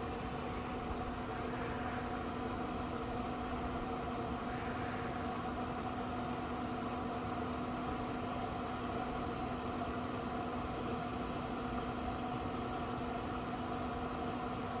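Traeger Pro Series 34 pellet grill running while it smokes, its combustion fan giving a steady, even hum.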